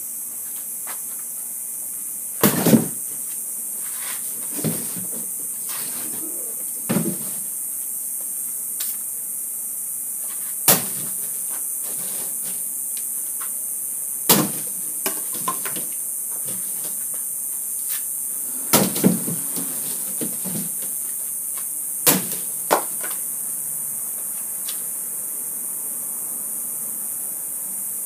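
Gladius short sword chopping into heavy corrugated cardboard: about ten sharp whacks at irregular intervals, a few of them in quick pairs, over a steady high hiss of insects.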